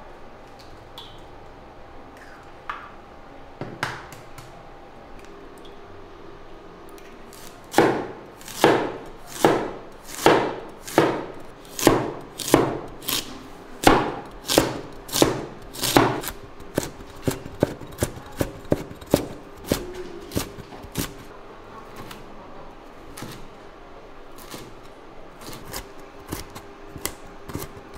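Chinese cleaver chopping carrots on a wooden cutting board. After a few faint knocks, sharp blade-on-board knocks begin about eight seconds in at about two a second, then turn lighter and quicker as the carrot is diced.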